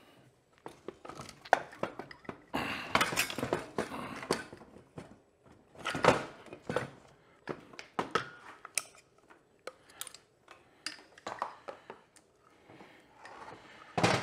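A dirt-bike engine being worked out of its aluminium frame: irregular metal clunks, knocks and scrapes as the engine cases bang and slide against the frame, the loudest knock about six seconds in.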